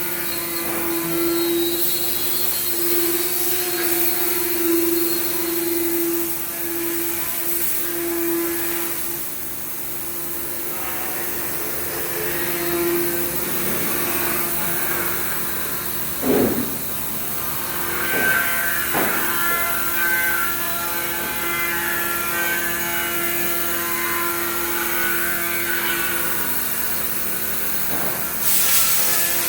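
Cutting spindle on a KUKA robot running with a steady whine over machine hiss while it cuts ABS plastic parts, with a few brief changes in pitch partway through and a short burst of hiss near the end.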